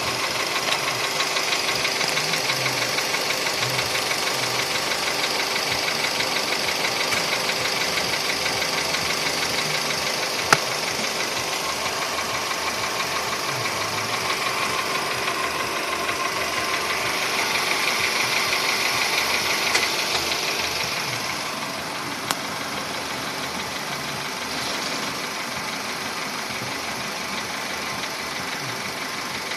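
Volkswagen Polo Sedan engine running steadily with a fast, regular knock in its running. The knock came on faintly at around 61–62 thousand km and by 67 thousand km has grown sharply louder. The sound eases a little about two-thirds of the way through, and two sharp single clicks stand out.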